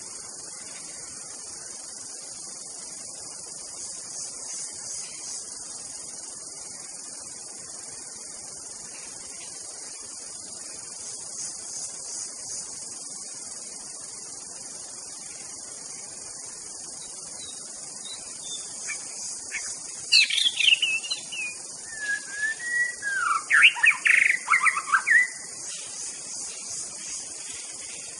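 Steady high-pitched chorus of insects, with a white-rumped shama breaking in during the last third with a short burst of loud, rapidly varied song notes.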